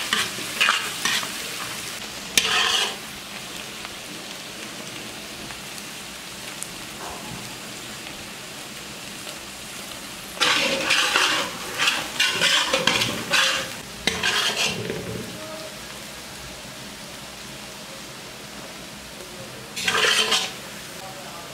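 Chopped onion sizzling in hot mustard oil and ghee with whole spices, a steady frying hiss. It is stirred and scraped around the pan in spells: a few strokes at the start, a longer stretch in the middle, and a short one near the end.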